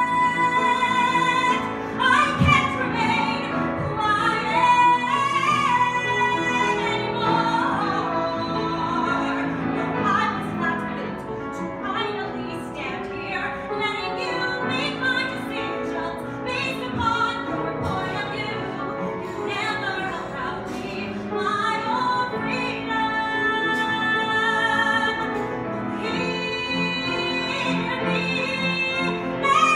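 Woman singing a musical-theatre song in a belting style, with long held notes that waver in pitch, over piano accompaniment.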